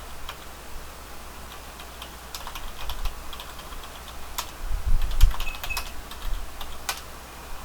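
Typing on a computer keyboard: irregular, scattered keystrokes, busier in the second half, with a few dull thumps about five seconds in.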